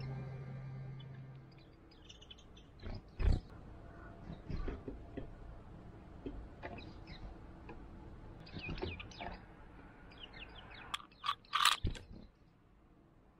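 Japanese white-eyes pecking at halved mandarin oranges on a feeder, with scattered beak taps and a few louder knocks about three seconds in and near the end, plus a few short high notes.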